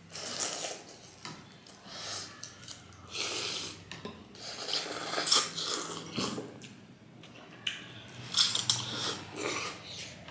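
Two people slurping and chewing pork thukpa noodles from soup bowls, in repeated short slurps with pauses between them. The loudest slurps come a little past halfway and again near the end.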